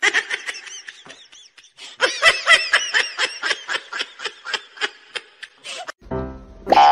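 High-pitched human laughter: a long string of quick 'ha' pulses, sparse at first and then denser and louder from about two seconds in. It breaks off abruptly near the end.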